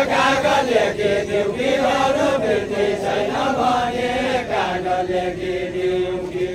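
A group of voices singing a Deuda folk song together in a chant-like melody. The line ends on a long held note.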